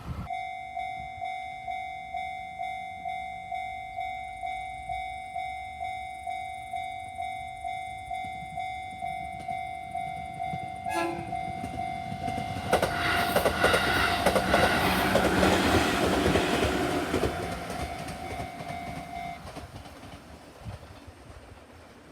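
Level-crossing warning bell dinging in a steady repeating rhythm while a train passes, its wheels clattering over the rail joints, loudest past the middle and then fading away. The bell stops shortly before the end. A brief, sharply falling tone sounds just before the train arrives.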